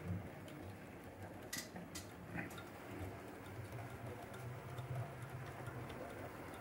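O gauge model steam tank locomotive and its train of coal wagons running along the track: a faint, steady low motor hum with a few sharp clicks of wheels over rail joints about two seconds in.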